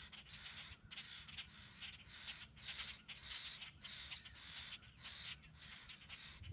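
Crows cawing over and over, mobbing a red-tailed hawk perched in a treetop, over a low rumble.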